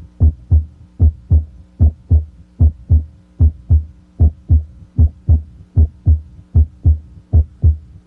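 Normal heart sounds at the mitral area (cardiac apex), heard through a stethoscope: steady paired lub-dub beats, S1 from mitral valve closure followed by S2, at about 75 beats a minute. At this site S1 is usually louder than S2.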